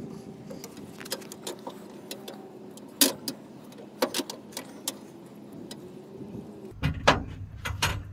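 Hand cable cutters biting through a thick 2/0 copper battery cable: scattered sharp clicks and metallic snaps as the blades work through the strands, with pauses between. A low rumble comes in near the end.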